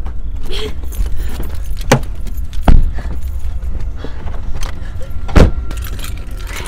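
A steady low rumble with three loud, sharp knocks, about two, nearly three and five and a half seconds in, and a few fainter clicks.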